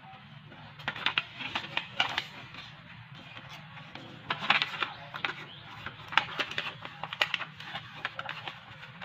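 A sheet of paper being folded and creased by hand, with irregular crinkles and sharp crackles, over a low steady hum.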